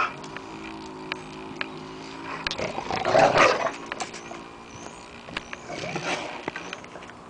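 Rottweiler growling low and steadily with a ball in her mouth for about five seconds, with a louder rough burst about three seconds in and scattered clicks.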